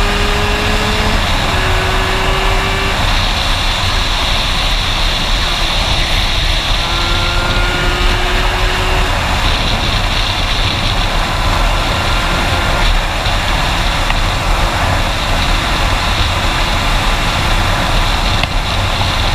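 Aprilia RS with a Minarelli AM6 two-stroke engine fitted with an 86 cc aluminium top end, ridden at speed, its engine note climbing slowly in pitch in stretches of a few seconds. Heavy wind rush on the helmet camera runs under it.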